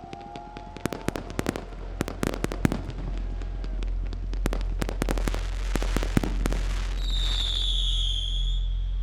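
Aerial fireworks going off: a rapid run of sharp reports and crackles, then about seven seconds in a whistle firework, a high whistle sliding slightly down in pitch, over a steady low rumble.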